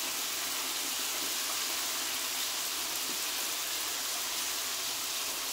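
Steady sizzle of food frying in hot oil: fish deep-frying in a pan, with chili paste cooking in a wok beside it.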